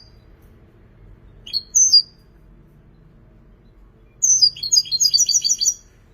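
European goldfinch singing: a short two-note phrase about a second and a half in, then a fast run of repeated high twittering notes from about four seconds in until near the end.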